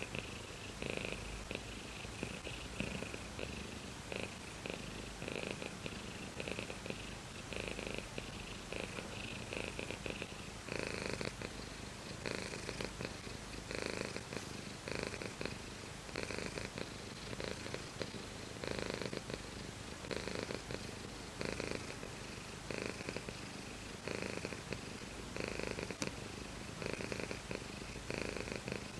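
Domestic cat purring steadily and contentedly, the purr swelling in pulses about once a second.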